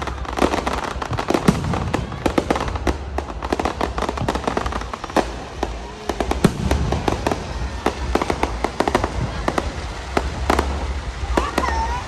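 Fireworks going off in a near-continuous barrage of sharp bangs and crackles, several each second, over a steady low rumble.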